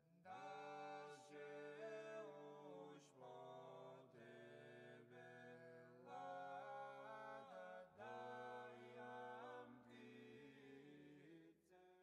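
Quiet background music of unaccompanied vocal chant: several voices hold long notes together, moving in phrases of a few seconds with short pitch glides between notes.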